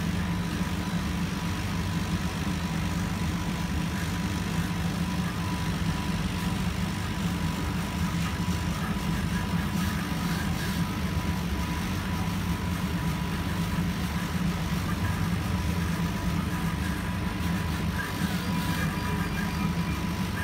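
Laser engraving machine running as its head engraves a design into paper card: a steady low machine hum with a faint steady high whine over it.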